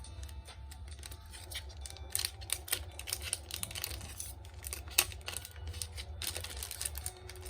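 Trading cards and a foil booster pack being handled: a string of small clicks, snaps and crinkles, with a few sharper snaps about two and five seconds in.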